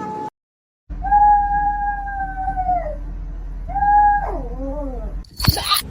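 Cat giving two long drawn-out yowling meows, the first held steady for about two seconds before dropping, the second shorter and wavering downward. A short, sharp, loud burst of noise follows near the end.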